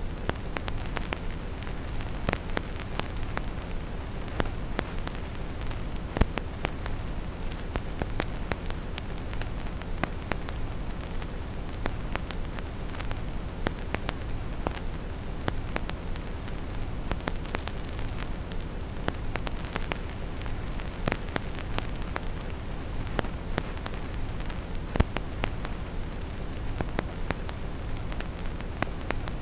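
Vinyl record crackle: scattered clicks and pops of the stylus on the disc's surface, over a steady, deep brown noise. Two louder pops stand out, one about six seconds in and one a few seconds before the end.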